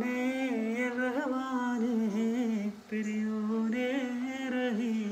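A person humming a tune in two long held phrases, with a short break about three seconds in.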